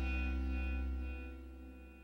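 Background music: a held chord ringing out and fading away as a song ends.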